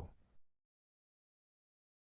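Near silence: a synthesized voice trails off at the start, then a dead-silent gap with no sound at all.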